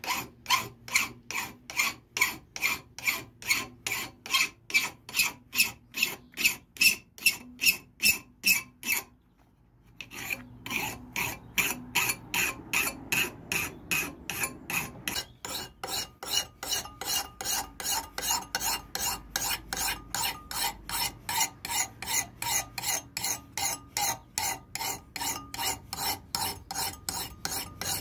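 Hand file rasping back and forth along a forged laminated-iron knife blade, in even strokes about three a second, with a short pause about nine seconds in before the strokes resume slightly faster.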